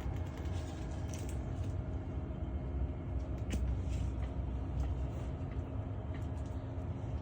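Steady low rumble with a faint hum and a few soft ticks.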